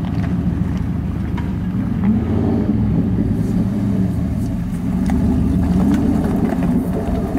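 Jeep Grand Cherokee ZJ's 5.2 V8 engine working under load as the vehicle crawls over dirt mounds, its revs rising and falling several times.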